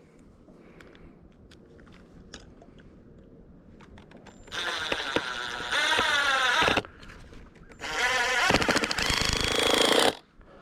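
Power drill driving screws in two runs of about two seconds each, starting about four and a half and eight seconds in, its motor pitch sweeping as the screws bite. A few light clicks and knocks of handling come before.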